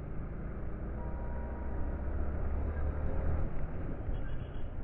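Motorcycle engine and road noise heard from the rider's own bike moving through traffic: a steady low rumble that swells in the middle.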